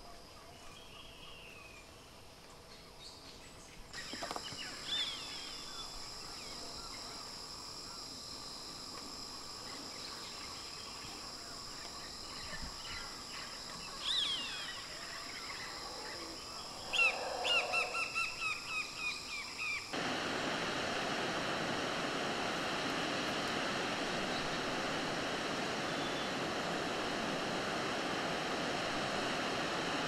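Tropical outdoor ambience: a steady high insect drone with scattered bird calls, including a quick run of repeated falling notes. About two-thirds of the way through it cuts to the even, steady rush of a waterfall.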